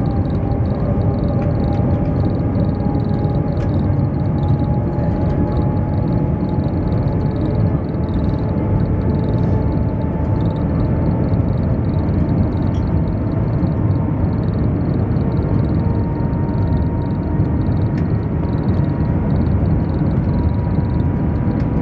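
Steady loud running noise inside the cabin of the Shanghai Maglev, a Transrapid maglev train, at high speed, with a faint whine that rises slowly in pitch as the train gathers speed toward 300 km/h.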